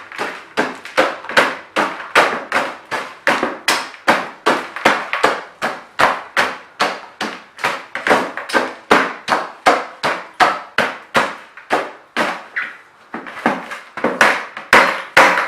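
Hammer pounding dry ice in a container, crushing the chunks toward a fine powder: steady, sharp blows about three a second, slowing briefly about three-quarters of the way through.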